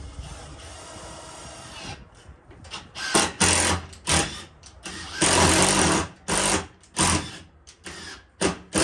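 Power drill driving a screw into exterior door trim in a series of short bursts, the longest about a second long around five seconds in, to pull the corner of the trim flush.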